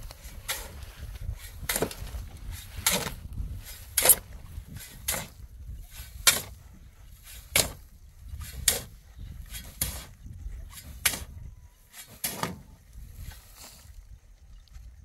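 A shovel scooping sand off the metal bed of a pickup truck: a scrape and toss about once a second, around a dozen strokes, that stop shortly before the end.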